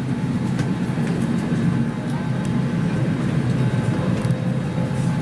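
Steady low rumble of an Airbus A321's airliner cabin, with a few faint clicks.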